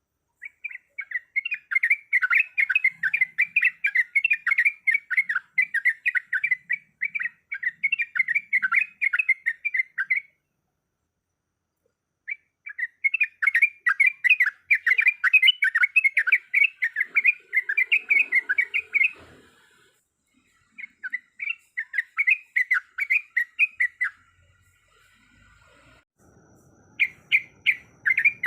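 Sooty-headed bulbul (trucuk) singing its rapid rolling chatter, the long 'ropel' song used to lure and provoke other birds. It comes in four long runs of fast notes with brief pauses between them.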